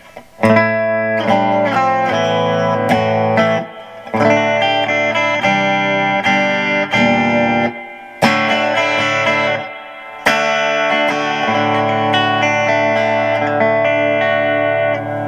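Monoprice Indio Retro Classic Tele-style electric guitar played through an amp on its bridge pickup: strummed chords and ringing single notes, with a few short breaks.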